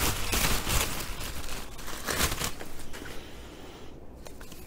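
Plastic bag crinkling and rustling as it is pulled off a piston and connecting rod by gloved hands. The crinkling fades after about two and a half seconds.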